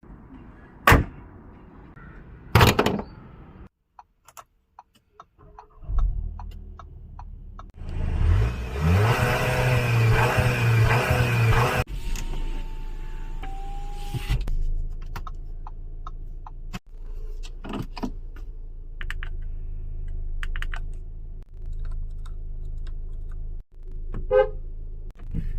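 Audi Q3 car sounds: two loud thumps in the first few seconds, then the engine starts and revs up for a few seconds, rising in pitch at first. It then settles into a steady low idle with scattered light clicks.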